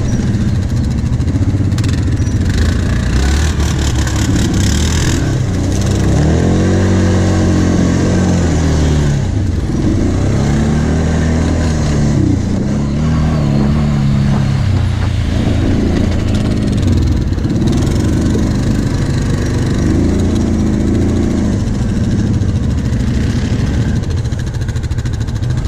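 Kawasaki Brute Force 750 ATV's V-twin engine under way over rough sandy trail, revving up and falling back again and again, its pitch swelling and dropping every second or two. A rushing hiss joins in for a few seconds early in the ride.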